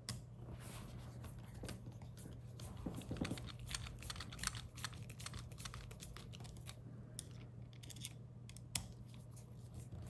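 Faint, irregular small clicks and scrapes of a screwdriver turning screws into the plastic cord-grip clamp of a 30 amp RV plug, tightening it down on the cable, over a steady low hum.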